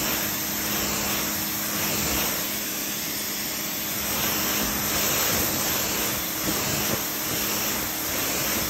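Greenworks 1600 PSI electric pressure washer running, its 40-degree nozzle spraying a steady hiss of water against a pickup truck's body panels, with a steady hum from the machine under the spray.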